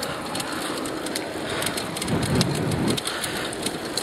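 Tyres of a Linear Limo recumbent bicycle rolling over a fine gravel trail: a steady crackling hiss of small stones under the wheels. A louder low rush comes about two seconds in.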